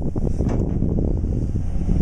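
Caterpillar excavator's diesel engine running, a steady low rumble.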